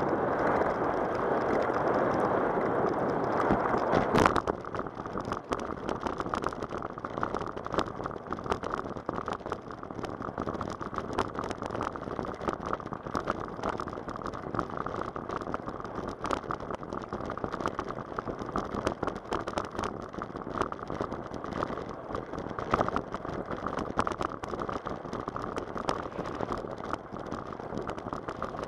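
Bicycle tyres rolling on a rough asphalt path with a steady rushing noise, then a sharp knock about four seconds in as the bike rolls onto a wooden footbridge. After that, a quick, uneven clatter as the tyres run over the bridge's deck boards and the bike rattles.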